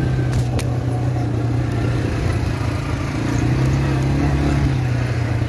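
Motorcycle engine running steadily while riding, its pitch dipping slightly around the middle and rising again, with two sharp clicks about half a second in.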